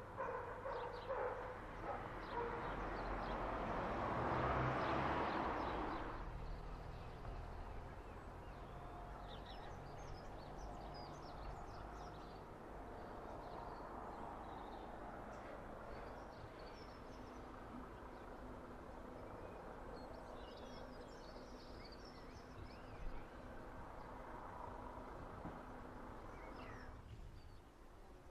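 Outdoor ambience: a swell of rushing noise rises and fades in the first few seconds, then birds chirp faintly over a low steady hum.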